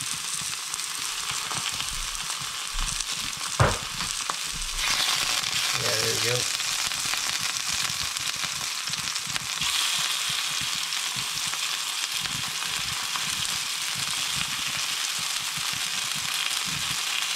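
Grouse meat frying in hot oil in a cast-iron skillet: a steady sizzling hiss that grows louder about five seconds in and again near ten seconds as more pieces go into the pan. A single brief knock comes a few seconds in.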